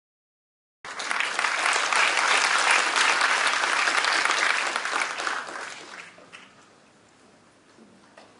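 Audience applauding, a dense patter of many hands clapping that starts abruptly about a second in and dies away over the last few seconds.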